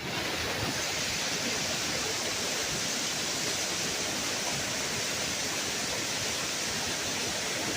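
Steady rushing of flowing water, an even noise that starts abruptly and holds the same level without gusts.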